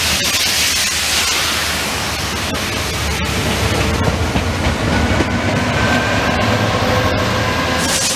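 A Class 66 diesel-electric freight locomotive, with its two-stroke V12 diesel engine running, passes close by hauling tank wagons: a steady rumble of engine and wheels with scattered sharp clicks. A faint steady whine joins about halfway through.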